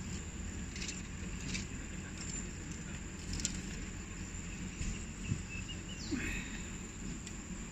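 Outdoor ambience: a steady high insect drone over a low rumble, with a few faint clicks and a short chirp about six seconds in.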